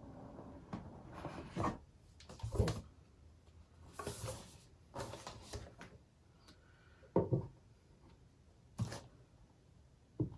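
Handling sounds as an Apple laptop's cardboard box is unpacked: a scrape as the box parts slide apart about four seconds in, and several light, separate knocks of cardboard and packaging.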